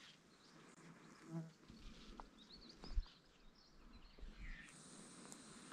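Quiet bushland ambience: faint high chirps, a brief low buzz about a second and a half in, and a single soft knock about three seconds in.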